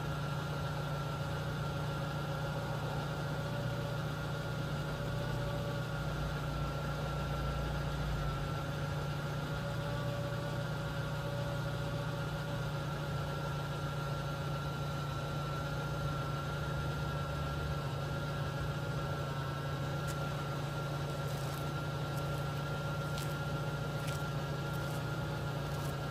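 An engine idling steadily with a constant low hum, and a few faint clicks near the end.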